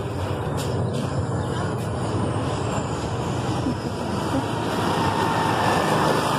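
Steady outdoor city noise, a traffic-like rumble that swells a little toward the end.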